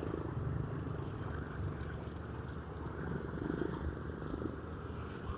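Honda Scoopy motor scooter riding along, a steady engine and road rumble.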